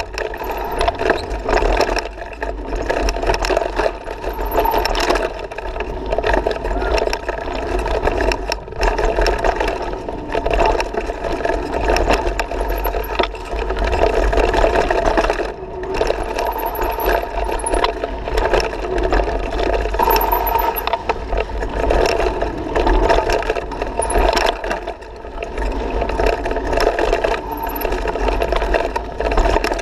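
Mountain bike riding fast down a dirt singletrack, heard from a camera on the bike or rider: a steady rush of wind and tyre noise with frequent rattles and knocks as the bike goes over roots and bumps.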